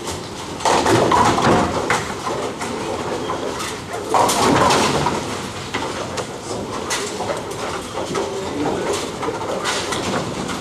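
Ten-pin bowling alley: balls rolling down the wooden lanes with a steady rumble, and pins clattering as they are struck, loudest about a second in and again near four seconds.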